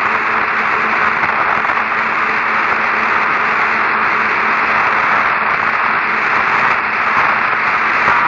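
Steady radio static hiss on a narrow-band communications channel, with a faint low hum running underneath.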